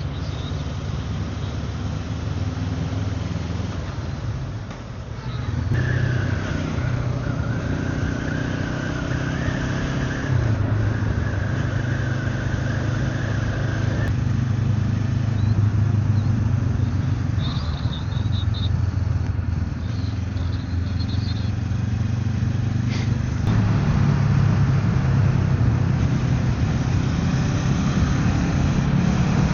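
Motorcycle engine running steadily under way, with rushing wind noise over it. A thin high whine comes in about six seconds in and stops about eight seconds later, and the engine note rises a little near the end.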